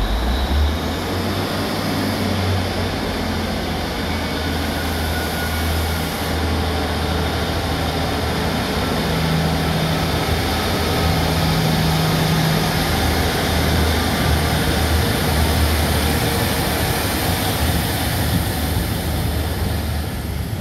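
Class 150 Sprinter diesel multiple unit pulling away from the platform, its underfloor Cummins diesel engines opening up right at the start and then working hard with a steady low drone as the train accelerates past and away.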